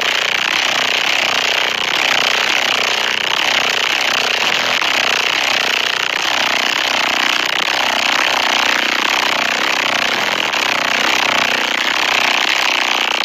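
Loud, steady, harsh buzzing rattle of a car's body panels and glass shaken by a very powerful stereo's bass.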